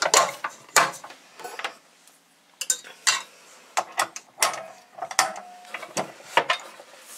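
Stand mixer being set up: the stainless steel bowl and wire whisk attachment are fitted into place, giving an irregular string of sharp metal clicks and clanks.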